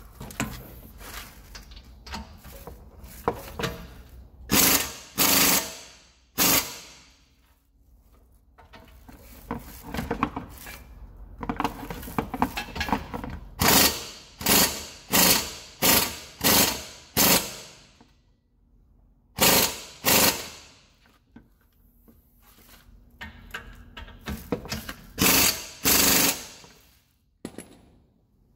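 Pneumatic impact wrench hammering on a wheel-hub bolt in a series of short bursts with pauses between them, about a dozen and a half in all. Each burst turns the bolt only a little further, so the bolt has not yet come up tight.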